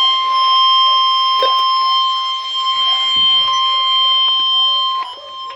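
Weather radio sounding the Weatheradio Canada warning alarm tone: a loud, steady high-pitched tone that cuts off about five seconds in, signalling that a warning bulletin is about to be read.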